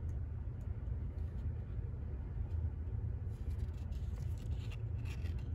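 A steady low rumble of background noise, with faint soft rustles of glossy trading cards being slid off a pack stack and handled, mostly from about three seconds in to near the end.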